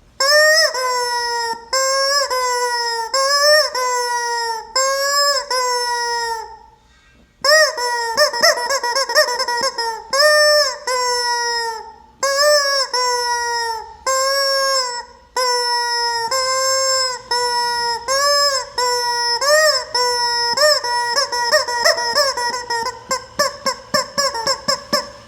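Rubber chicken squeeze toy squawking over and over, each squeeze giving a loud, honking squawk about a second long. Near the end it is squeezed in a quick run of short squeaks.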